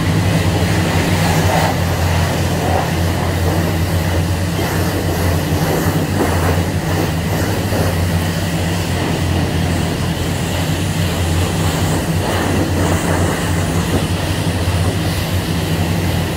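High-pressure spray wand at a self-serve car wash spraying water onto a car: a steady hiss of spray over a constant low hum.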